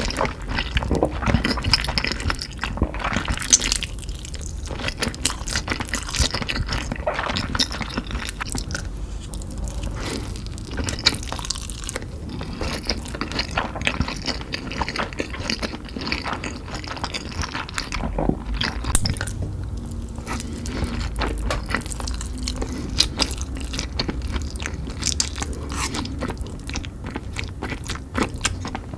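Close-miked eating of creamy carbonara fire noodles with kielbasa sausage: a dense, continuous run of wet chewing, biting and slurping sounds.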